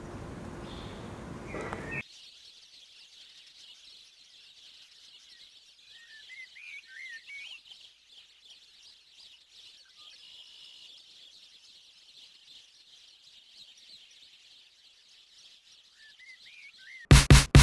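Faint birds chirping and twittering over a quiet outdoor hiss, after a brief stretch of street noise that cuts off abruptly about two seconds in. Loud music comes in near the end.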